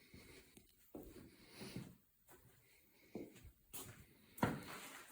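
Faint handling noise: several separate knocks and short scraping or rustling sounds, the loudest knock near the end.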